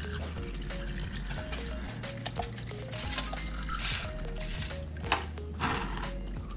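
Background music with a steady bass line and short melodic notes, with a few brief rustling noises over it.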